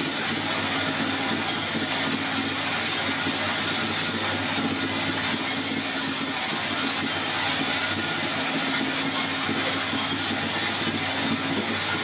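Vertical band saw running and sawing through a log, a steady machine noise with a high hiss that comes and goes several times as the wood is fed through the blade.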